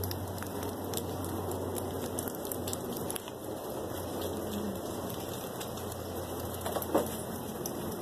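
Light wet snow pattering steadily on dry leaves and grass, with a low hum under it in the first half and one sharp tap about seven seconds in.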